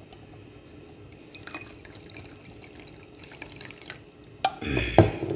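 Corn silk tea being sipped from a stainless steel mug, with faint liquid sounds. Near the end come a sharp click and a louder burst of liquid and handling noise with a couple of knocks from the mug.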